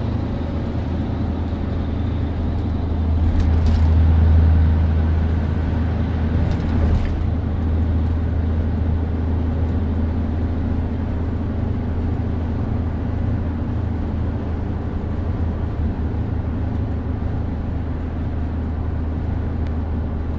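Steady low rumble of highway driving heard inside a pickup's cab, swelling about four seconds in while a 1985 Freightliner cabover semi runs close alongside, then holding level as the truck drops back.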